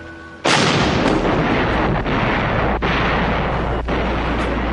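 Artillery barrage: a sudden loud blast about half a second in, then a continuous dense rumble of shell fire and explosions.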